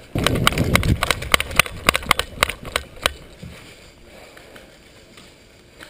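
A player running on grass with gear rattling against the body-worn camera: a low rumble at first, then irregular clicks and knocks for about three seconds, then much quieter.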